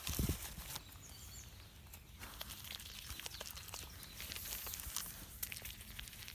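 Guanaco nibbling feed pellets from an open hand with its lips: a scatter of small clicks and crackles, after a couple of low handling thumps at the start.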